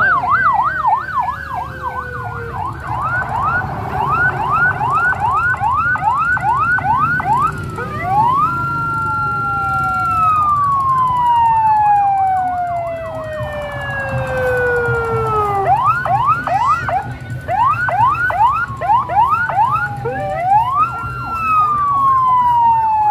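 Two or more electronic sirens sounding together, switching between a fast yelp of about three sweeps a second and a slow wail that rises, holds, then falls away over several seconds, over a low steady rumble.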